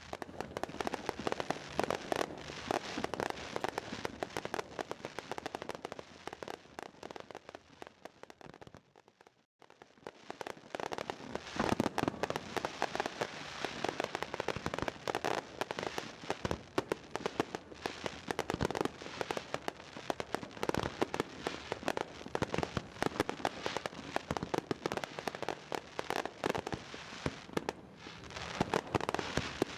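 Fireworks display: many shells bursting in quick succession, a dense run of crackling reports with heavier bangs among them, broken by a brief gap about nine seconds in.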